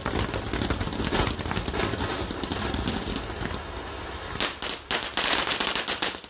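Ground fountain firework spraying sparks, hissing with rapid crackling pops. From about four and a half seconds in it breaks into louder, dense crackling bursts, described as loud.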